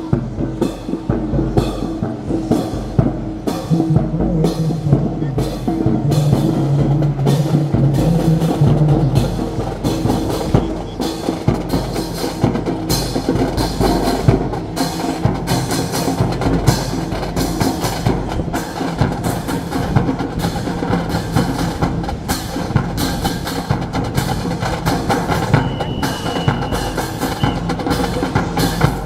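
Music with drums and a steady, driving beat, accompanying a drill performance; it stops abruptly near the end.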